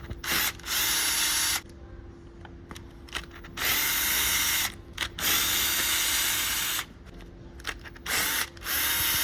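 A power driver running in repeated short bursts of up to about a second and a half, with pauses between, as it undoes the valve cover bolts. A faint steady hum sits underneath.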